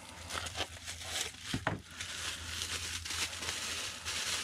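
Bubble wrap and cardboard packaging being handled and pulled open: a run of irregular plastic crinkling and rustling, with a brief, louder scrape about one and a half seconds in.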